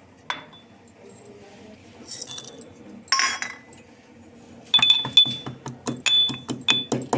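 Whole spices and ginger being pounded with a mortar and pestle. There is a single clink about a third of a second in, then from past the halfway point a fast run of ringing strikes, about five a second.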